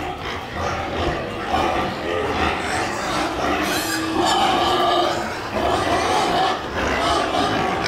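Domestic pigs grunting and squealing close by, with one longer, steady call about four seconds in.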